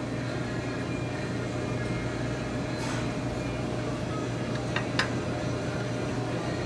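Steady hum and rush of commercial kitchen machinery, such as exhaust-hood fans, with a couple of light clicks about five seconds in.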